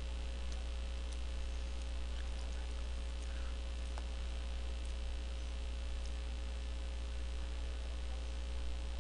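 Steady low electrical mains hum, with a few faint clicks scattered through it.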